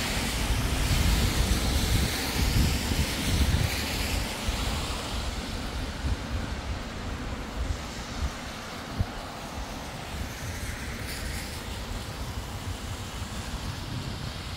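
Road traffic in heavy rain: a vehicle passes on the wet street with a rumble and tyre hiss, loudest in the first few seconds and then fading into the steady rain noise.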